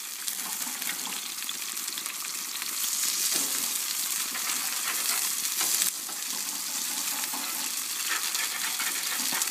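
Food frying in a hot pan on a very hot grill: a steady sizzle with small crackles, dipping briefly about six seconds in.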